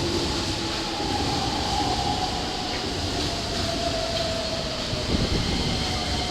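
Keikyu electric train running at close range, its motor whine slowly falling in pitch over the running noise, with one low thump about five seconds in.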